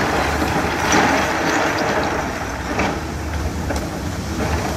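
Hyundai 210 crawler excavator's diesel engine running steadily as the machine swings and lifts a bucket of crushed rock, with a couple of faint knocks partway through.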